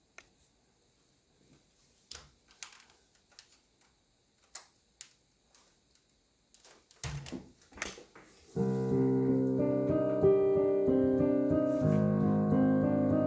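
Scattered clicks and a few knocks, then about two-thirds of the way in a Roland Fantom 8 synthesizer's piano sound starts playing sustained chords, changing chord a little later.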